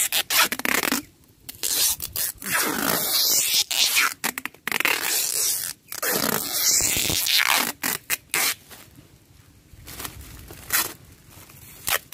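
Yellow adhesive tape pulled off its roll in several long, noisy strips as it is wound tight around a tree's soil root ball. The strokes come mostly in the first eight seconds. The tape is too thin and keeps tearing.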